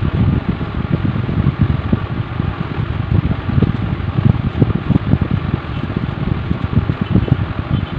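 Air from a room fan buffeting the microphone: a steady, low, fluttering rush with no pencil strokes standing out.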